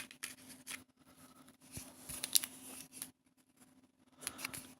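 Faint, scattered rustling and light clicks from a diamond-painting kit's packaging being handled, with a short near-silent pause about three seconds in.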